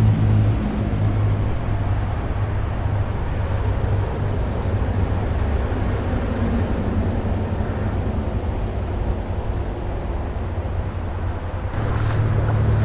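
Steady low rumble of distant vehicles, growing louder and deeper near the end.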